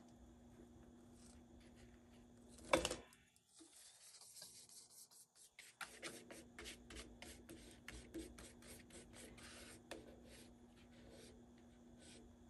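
Paintbrush mixing thick paint on a paper plate: quiet, irregular scraping and dabbing strokes, with one louder knock about three seconds in, over a faint steady hum.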